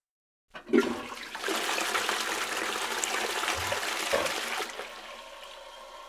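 Toilet flushing: a sharp clunk about half a second in, then a loud rush of water for about four seconds that falls away near the end to a quieter steady hiss.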